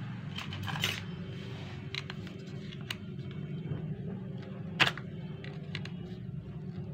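Plastic clicks and knocks from an HP 80A toner cartridge being handled and worked apart, the sharpest knock about five seconds in, over a steady low hum.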